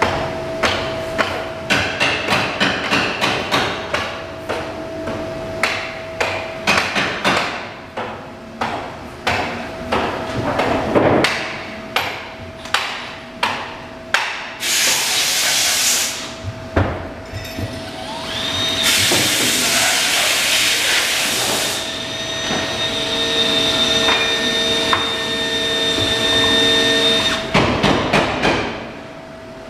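Rapid hammering, a few sharp strikes a second, through the first half. Then come two hissing bursts, the second about three seconds after the first, and a steadier machine hum near the end.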